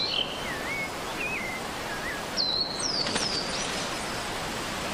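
Forest ambience: a steady hiss with small birds calling over it. There are a few short, wavering chirps in the first two seconds, then two or three higher, sweeping whistles around the middle.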